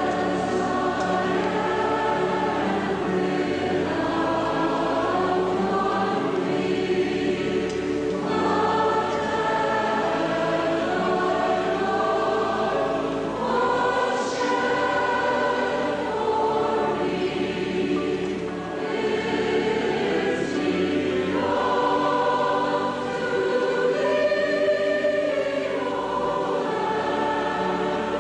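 Large choir singing a slow hymn in sustained chords over low held bass notes: the invitation hymn sung while people come forward at an altar call.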